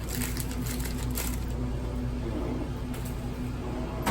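Steady low mechanical hum with a faint pulsing drone.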